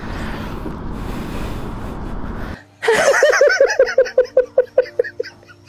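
A steady background noise for about two and a half seconds, then an abrupt cut to a burst of laughter: a quick run of 'ha' pulses, about five a second, that fade away, with a few steady tones joining near the end.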